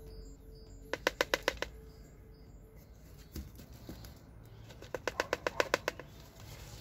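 Two short bursts of rapid clicking, about ten clicks a second: one about a second in, the other about five seconds in.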